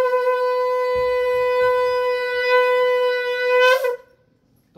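Conch shell (shankh) blown in one long, steady, horn-like note that ends about four seconds in with a brief wobble in pitch.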